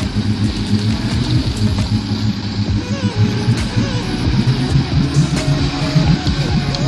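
Heavy truck engine running hard as the truck pushes through deep mud, with background music playing over it.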